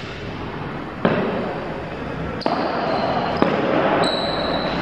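A ball thudding on the hard floor of an indoor sports court about four times, each knock echoing around the large hall.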